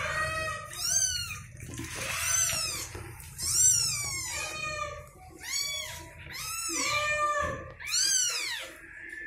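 Newborn kittens mewing while jostling for a teat to suckle: high-pitched calls that rise and fall, about one a second and sometimes overlapping, over a low steady hum.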